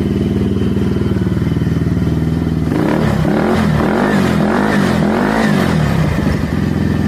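125cc moped engine idling steadily, then revved up and back down several times in quick succession from about three seconds in. Its exhaust sounds rough; the owner calls it absolutely horrible.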